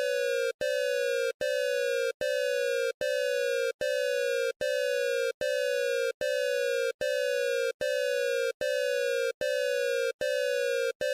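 Electronic emergency-alert-style alarm tone: a harsh beep repeating steadily about every 0.8 s, each beep sliding slightly down in pitch, with a short gap between beeps.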